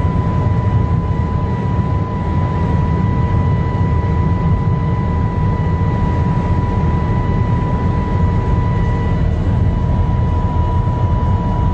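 In-cabin noise of an Audi RS6 at about 200 mph: a loud, steady rumble of wind, tyres and engine, with a steady high whine over it.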